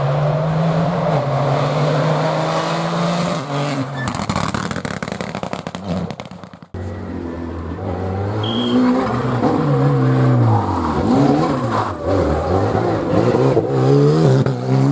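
Rally car engines at full attack. One car holds a steady high note, then gives way to a rapid crackling and popping as the note drops away. After a sudden cut, another car revs up and down repeatedly as it shifts gears and brakes through the stage.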